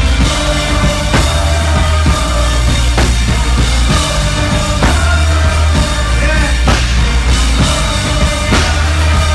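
Live band music led by a drum kit, with regular kick and snare hits about once a second over a heavy bass line and melodic instruments.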